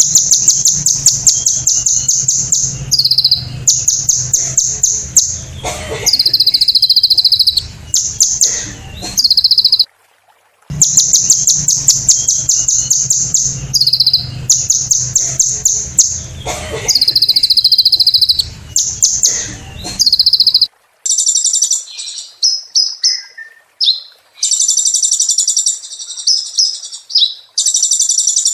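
Sunbird (Kolibri Ninja) singing loud, rapid, high-pitched trilled phrases with short pauses between them. A low hum lies under the song until about two-thirds of the way through, then stops, and the phrases that follow are shorter and choppier.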